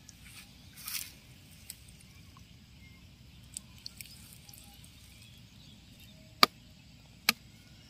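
A soft squelch of a hand in muddy burrow water about a second in, then near the end two sharp knocks about a second apart as a digging bar strikes the mud.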